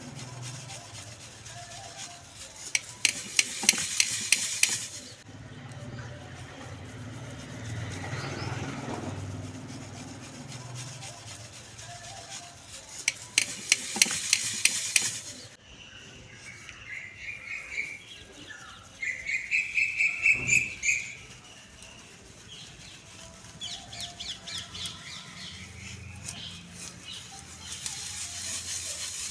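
Dry, brittle clumps crumbling with dense crackles in three bursts of a couple of seconds each, with birds chirping in the background.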